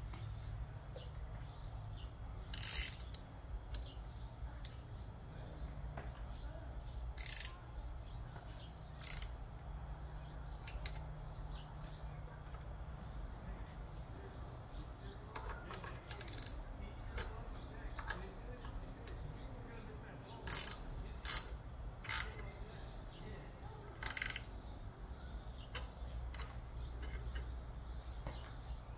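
Hand ratchet clicking in short runs, with light metal tool clinks, as the air-cleaner mounting bolts are run in. A steady low hum lies underneath.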